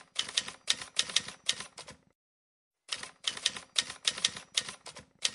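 Typing sound effect: rapid key clicks at about four a second, in two runs with a pause of about a second between them.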